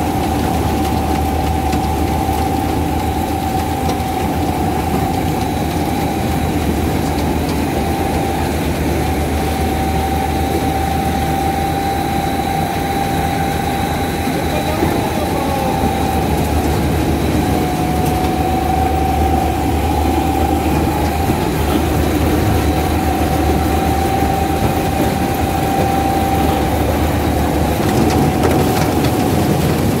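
Malkit 997 combine harvester running at work with its maize header engaged: a steady engine drone under a constant high-pitched whine from the machine's drives.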